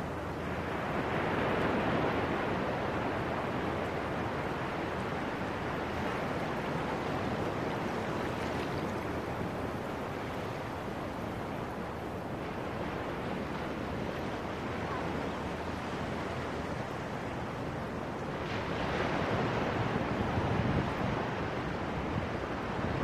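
Ocean surf washing over the sand at the water's edge: a steady wash that swells louder twice as waves run in, about a second in and near the end.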